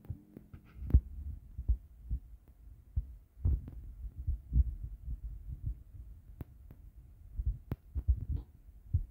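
Irregular soft low thumps and knocks with a few light, sharp clicks: kitchen handling noise as a tablespoon and an oil bottle are worked over a plastic blender jug.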